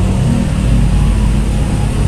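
Diesel engine of a container truck running under load as it tows a shipping-container trailer across the tracks, with steady road traffic noise.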